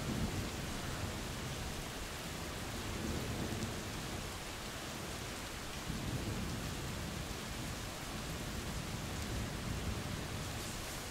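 Steady rain falling, with low rolling thunder rumbling in swells, strongest near the start and again about six seconds in.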